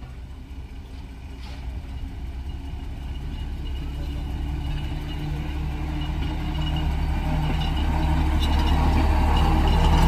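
Vintage motor railcar approaching with its engine running. The engine note grows steadily louder as it draws near.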